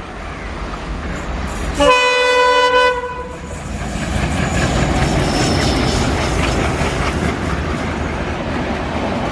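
An EMD diesel locomotive's horn sounds one loud blast of about a second, about two seconds in, over the growing rumble of the approaching train. The express then runs past close by with a loud, steady rumble.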